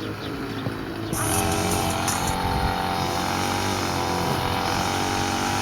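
An engine starts up about a second in and keeps running at a steady, even pitch.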